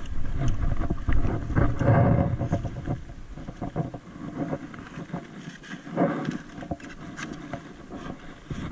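Wind buffeting the microphone, strongest in the first few seconds, with scattered knocks and rustling from a landing net and fishing gear being carried on foot.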